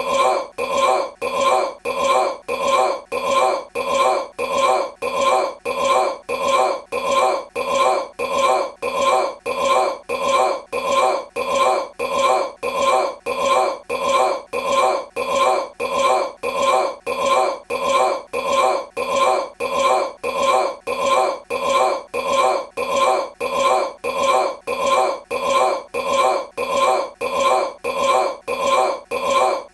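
A man burping: the same short belch repeated over and over in an even, unbroken rhythm of roughly two a second, like a looped clip.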